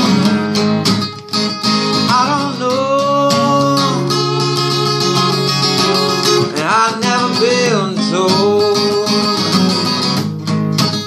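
Acoustic guitar strummed in a steady rhythm, with a man's voice singing long, sliding held notes over it.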